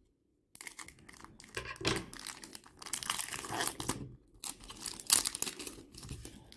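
Plastic foil wrapper of a trading card pack being torn open and crinkled, in irregular rustling bursts with a short pause partway through.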